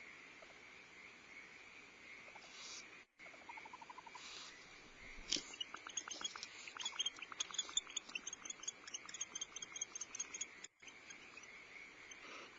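Barn owls calling in the nest box: a few short hisses, then from about five seconds in a quick run of faint chirps and clicks lasting about five seconds.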